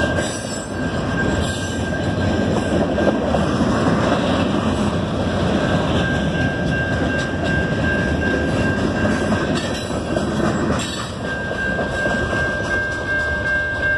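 Norfolk Southern freight cars rolling past over a grade crossing: a steady rumble and clatter of steel wheels on rail, easing a little near the end as the last car goes by. A steady high tone runs alongside it.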